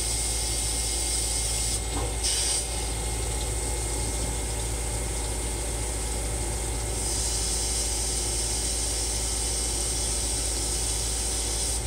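Cubic GTV-42 CNC lathe turning stainless steel round bar into a 1911 barrel bushing under flood coolant. A steady hiss of coolant spray runs over the machine's running hum, and the hiss shifts in tone about seven seconds in.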